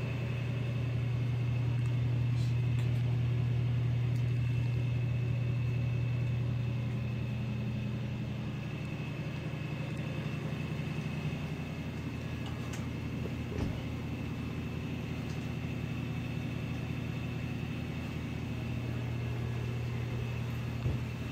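Steady low mechanical hum of the ventilation running inside a submarine's steel compartments, with a faint thin higher whine and a few light knocks.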